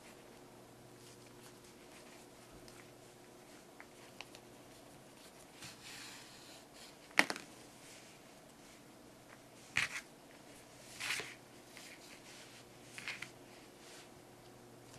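Hands handling crocheted frog pieces and drawing yarn through while sewing them together: soft scattered rustles and a few sharp clicks, the sharpest about seven seconds in, over a faint steady hum.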